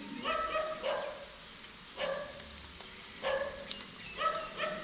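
A dog barking repeatedly, six short barks at uneven intervals, two of them close together near the end.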